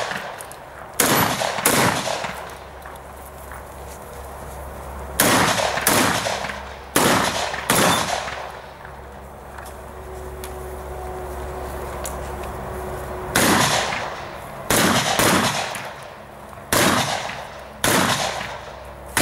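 Shotgun fired about a dozen times in quick pairs and singles, each shot a sharp crack with a short ringing tail. A gap of about five seconds falls in the middle, and the shooting resumes and carries on to the end.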